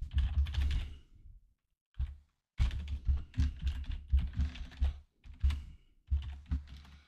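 Computer keyboard being typed on: quick runs of keystrokes with short pauses between them.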